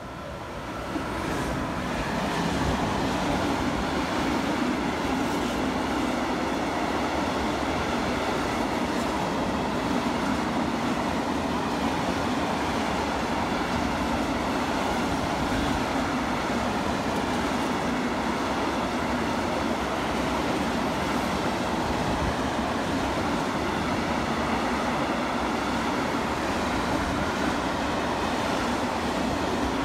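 A long train passing close by on the rails, its rumble and wheel noise building over the first couple of seconds and then holding steady.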